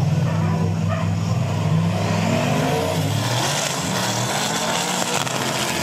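Two Nissan GU Patrol drag trucks, one with a 6-litre LS V8, launching off the line together. Their engines hold a steady drone, then rise in pitch as they accelerate down the strip about two to three seconds in.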